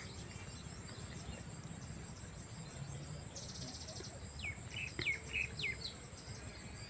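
Rural outdoor ambience: a steady high insect drone under a low rumble, with a bird giving a short buzzy trill and then four quick hooked chirps in the second half.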